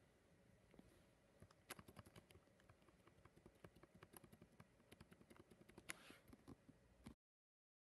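Faint, irregular clicking of keys on a backlit laptop keyboard, several a second, with one louder click about six seconds in. The sound cuts off suddenly near the end.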